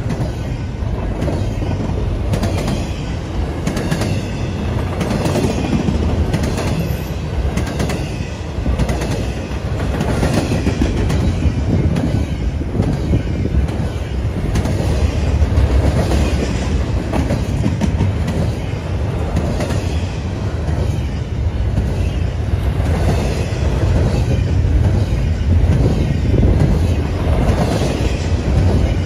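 Double-stack intermodal container well cars of a freight train rolling past at close range: a steady loud rumble of steel wheels on the rails, with repeated clicking as the wheels cross rail joints.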